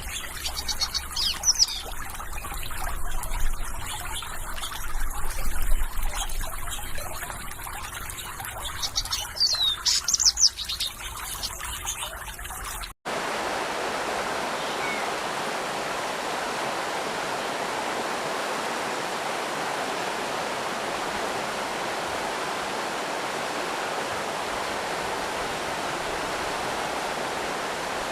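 Trickling, splashing stream water with small birds chirping now and then, loudest in a few chirps near the start and around ten seconds in. About halfway through it cuts off abruptly and gives way to a steady, even rush of falling water, like a waterfall.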